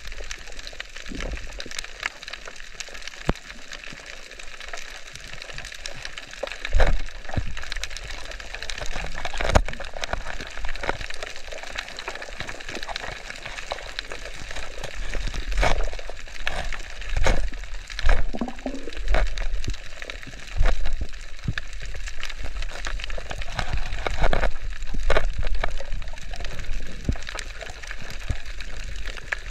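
Underwater ambience picked up by a submerged camera over a coral reef: a steady crackling hiss full of small clicks, with irregular low whooshes of water as the diver moves.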